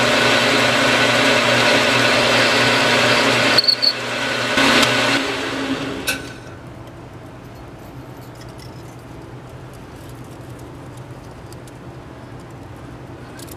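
Small benchtop metal lathe running while turning an aluminum bar, its motor and gearing humming steadily, with a brief high tone about three and a half seconds in. About six seconds in the lathe is switched off with a click and its sound dies away, leaving only faint small clicks.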